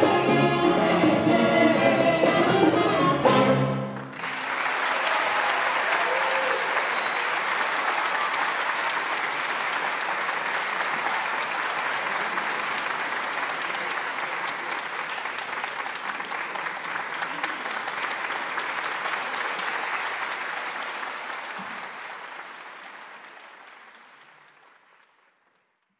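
A string orchestra sounds its final notes, which cut off about four seconds in. The audience then applauds steadily, and the applause fades away near the end.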